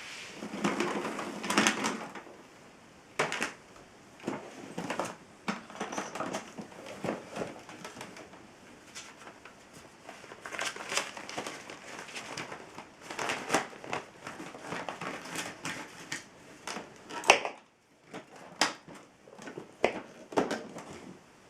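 Handling noises from a vacuum cleaner and its parts: irregular knocks, clicks and rustling, with the sharpest knock about three-quarters of the way through. The motor is not running.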